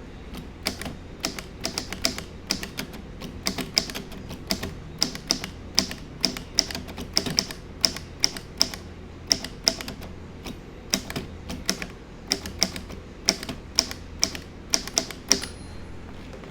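A 1931 Royal No. 10 manual typewriter being typed on: irregular sharp key strikes, about two or three a second, with a pause about twelve seconds in, stopping about a second before the end.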